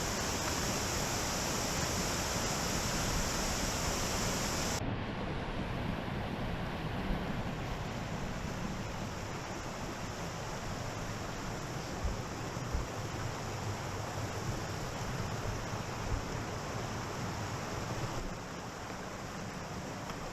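Waterfall rushing steadily; its sound changes abruptly about five seconds in and again near the end.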